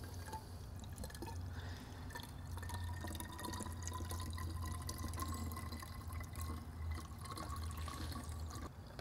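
Distilled water trickling and dripping as it is run through a motorcycle's cooling system during a flush, draining out a clear hose from the coolant drain into a container, over a low steady hum.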